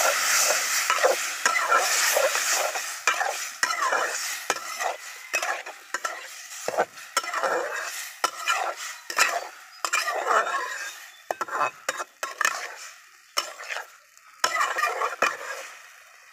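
Boiled potatoes sizzling in hot oil in a metal karahi as they are stirred and scraped with a metal spatula. The sizzle is loudest at first and dies down, leaving irregular spatula scrapes against the pan.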